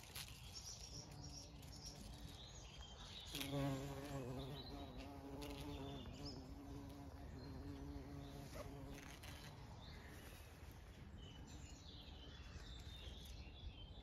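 Bumblebee buzzing in and around foxglove flowers: a faint, wavering hum that swells loudest about three and a half seconds in and fades away in the second half.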